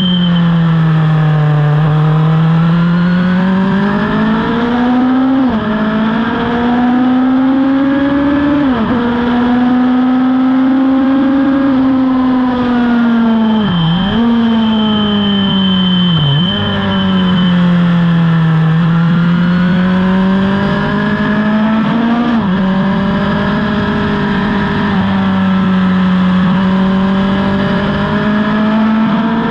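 On-board sound of a racing motorcycle's engine at speed around a road circuit, its pitch swelling under throttle and falling back, with several sharp dips at gear changes and braking. Wind rush runs underneath.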